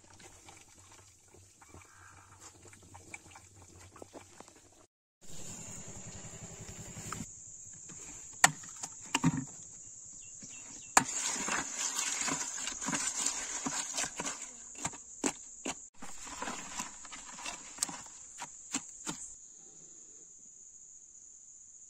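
Crickets chirring steadily and high-pitched, with scattered sharp clicks and knocks as eggs and plastic containers are handled in a bucket.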